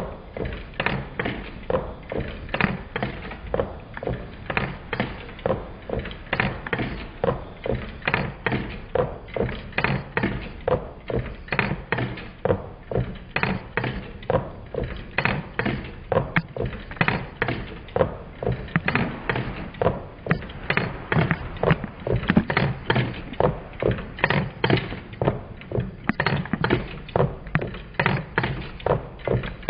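Twin-cylinder Meccano Stirling engine running, its displacers knocking as they land at each end of their travel. It makes a steady, even clatter of about two or three knocks a second.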